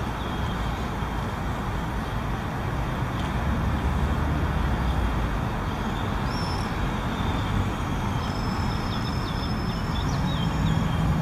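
Steady city traffic noise: a continuous rumble of road vehicles, with a few faint high chirps above it.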